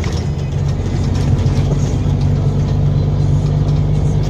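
Truck's diesel engine running steadily under throttle as it drives along, heard from inside the cab.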